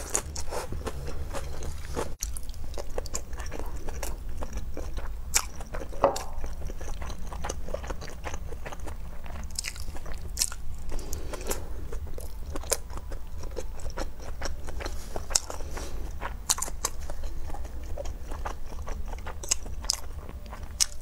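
Close-miked eating sounds: a person biting and chewing food off skewers, with frequent sharp crunchy bites and irregular chewing, over a low steady hum.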